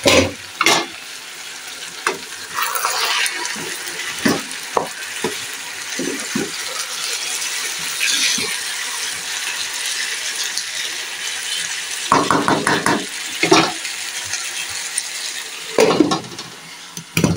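Diced potatoes frying in a pan, sizzling steadily, while a spatula stirs them, scraping and knocking against the pan, with a cluster of sharper knocks about twelve seconds in and again near the end.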